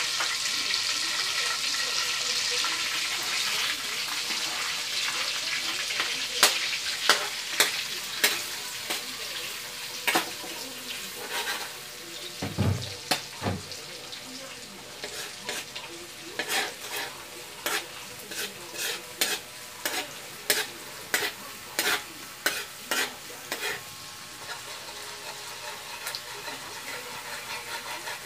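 Minced garlic frying in oil in a metal wok: a steady sizzle that eases off after the first few seconds. A metal spoon stirs through it, with many sharp clicks and scrapes against the wok from about six seconds in and a couple of dull knocks about halfway.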